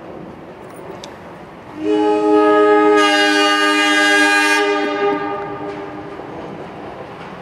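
Diesel train's air horn sounding one long chord-like blast about two seconds in, lasting about three seconds, over the steady rumble of the approaching train.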